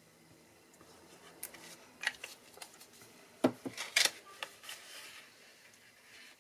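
Card stock being handled and folded by hand: scattered paper rustles with a few sharp clicks and taps, the loudest about three and a half to four seconds in.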